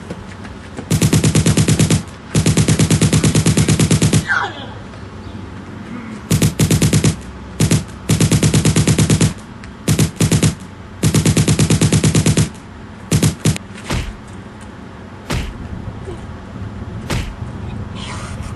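Machine-gun fire in long rapid bursts, then shorter bursts and a few scattered single shots in the second half.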